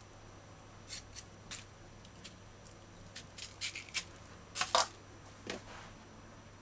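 Kitchen knife paring the peel off green banana and yam, with peelings dropping into a plastic bag: a scatter of short scrapes and rustles, the loudest pair about four and a half seconds in.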